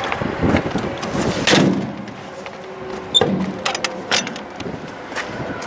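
Utility-body storage compartment doors being handled: a series of latch clicks and knocks, the loudest about one and a half seconds in and a sharp click about three seconds in.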